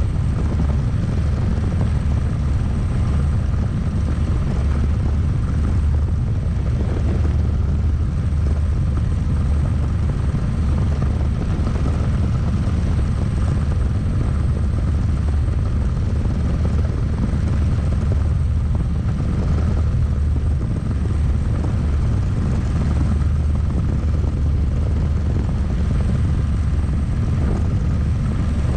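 Single-seat turbine helicopter in flight, heard from inside the cockpit: steady, heavy rotor and engine noise with a thin, constant high whine over it.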